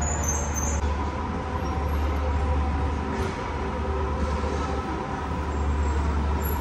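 Steady low rumble of city street noise, traffic and machinery blended together, with a few faint steady tones above it.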